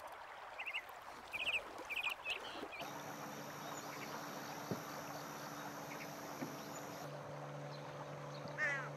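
Short, harsh bird calls: a few in quick succession in the first couple of seconds, and one more near the end. A steady low hum runs beneath them from about three seconds in.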